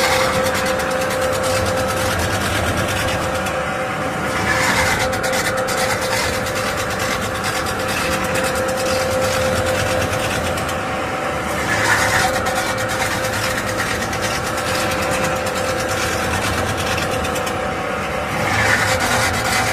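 CNC pot spinning machine running, a steady mechanical hum with a held tone under it. A brighter hiss swells up roughly every six to seven seconds.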